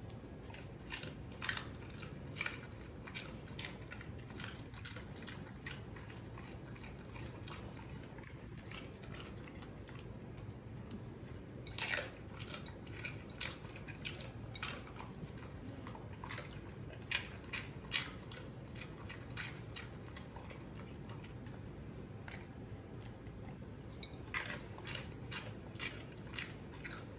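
Raw green bell pepper being bitten and chewed: an irregular run of crisp crunches, some in quick clusters, with short pauses between.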